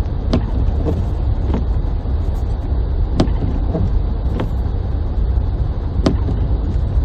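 Car being driven through snow, heard from inside the cabin: a steady low rumble of engine and tyres, with sharp clicks or knocks at uneven intervals.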